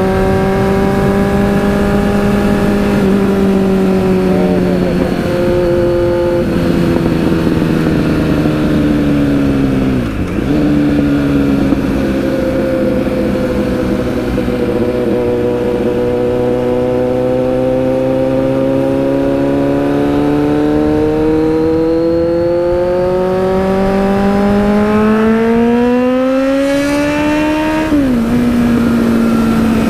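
Kawasaki Z900 inline-four with an aftermarket Racefit exhaust, running under way. It holds a fairly steady note, dips about ten seconds in, then climbs slowly in pitch and drops sharply near the end as the rider shifts up a gear.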